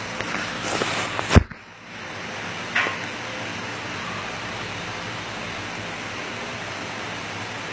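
A sharp knock about a second and a half in and a lighter click near three seconds, over a steady, even hiss of background noise.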